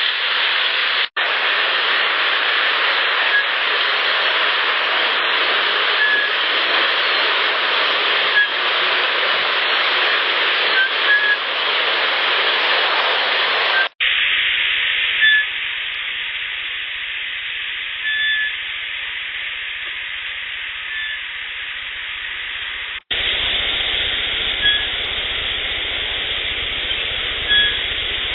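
Outdoor trail-recorder clips with a loud, steady hiss, through which several short, faint whistle notes sound every few seconds; the recordist attributes the whistles to Sasquatch. The sound cuts out briefly three times where one clip ends and the next begins.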